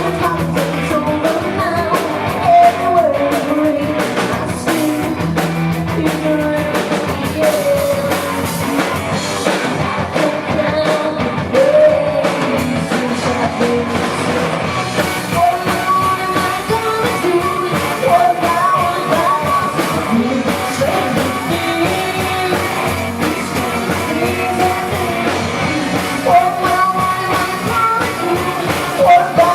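Live rock band playing a song with a singer over electric guitars and drum kit.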